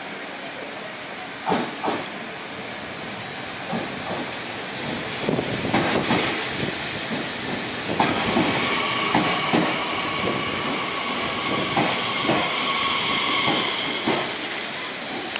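Nishitetsu 3000-series electric train pulling out of the platform, its wheels clacking over the rail joints. From about halfway through, a steady whine from its traction motors joins the clacking.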